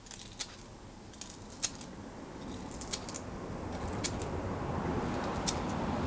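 Sandpaper rubbing along the stripped copper strands of a battery cable, cleaning them bright before soldering: a faint scratchy rasp that grows slowly louder, with a few light clicks.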